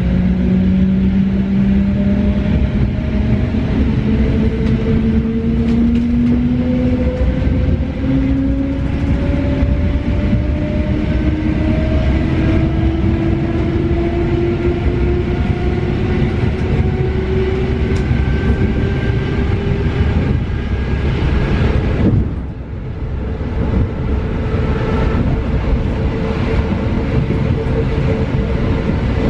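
Running noise inside an EN71 electric multiple unit gathering speed: a whine climbs steadily in pitch over the constant rumble of wheels on rail. About 22 seconds in the whine stops abruptly with a brief dip in loudness, leaving a steady hum over the rumble.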